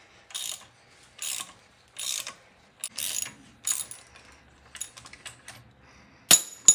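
3/8-inch-drive socket ratchet clicking in repeated short strokes, a little faster than one a second, backing out a freshly broken-loose crankshaft balancer bolt. Near the end come two sharp metallic clanks.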